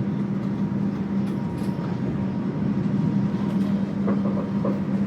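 Interior of a moving executive-class passenger train coach: a steady low hum over an even rolling rumble, with a few faint clicks.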